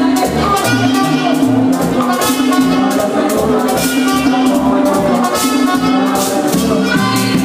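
Live Latin band music: held wind-instrument notes over drums and a shaker keeping a steady rhythm.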